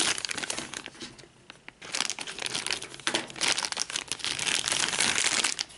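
Clear plastic bag crinkling as a doll is handled and worked inside it, crackling in two spells with a quieter moment about a second in.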